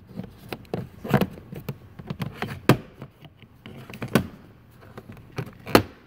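Plastic fuse-box cover on a 2012 Nissan Juke's lower driver's-side dash being pried open with a tool: a series of sharp plastic clicks and knocks, four of them louder, the loudest near the end.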